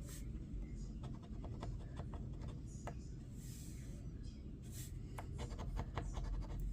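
Lottery scratch-off ticket being scratched: short faint scratching strokes and light ticks on the card as the coating is rubbed off letter spots.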